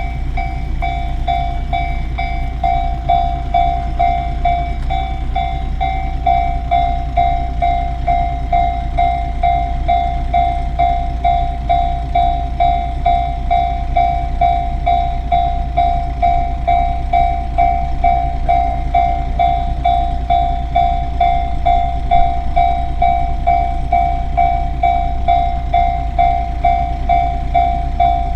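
Japanese railway level-crossing alarm ringing its repeating electronic 'kan-kan' tone, about two strikes a second, over a steady low rumble.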